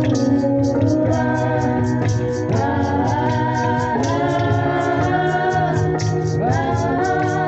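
Music: a singing voice holding long notes that slide between pitches, over a steady beat.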